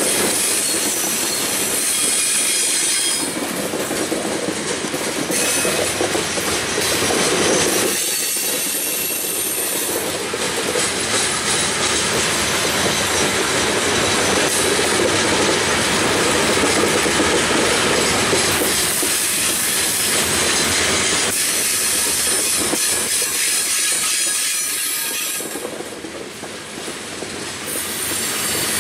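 Open-top hopper cars of a long freight train rolling past close by: a steady rumble and rattle of steel wheels on rail, with high wheel squeal. The noise dips briefly near the end.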